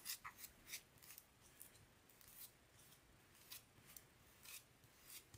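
Faint, irregular scraping and light ticks of spackle being spread over a foam cake board.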